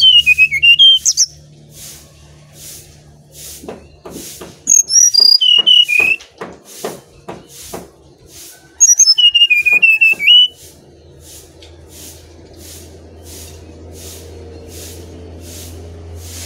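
Brown-chested jungle flycatcher singing: three loud whistled phrases, each opening with high notes and dropping into a quick warbling run of lower whistles, the second about four seconds in and the third about nine seconds in.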